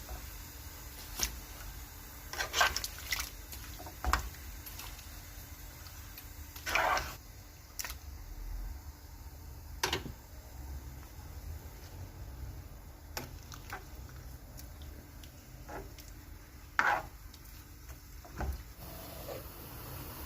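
Kitchen cookware sounds while cooking: about a dozen scattered clinks and knocks of utensils against cookware, with one longer scrape about seven seconds in, over a faint steady hiss.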